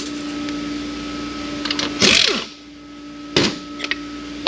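Metal parts and tools clanking as a servo is worked out of a Ford AOD transmission case: a loud scrape and clatter with a short falling ring about two seconds in, then sharp metal clicks. A steady shop hum runs behind.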